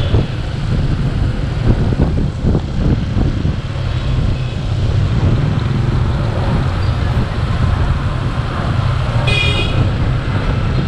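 Motorbike on the move: a steady low rumble of engine and road noise, with a short horn beep about nine seconds in.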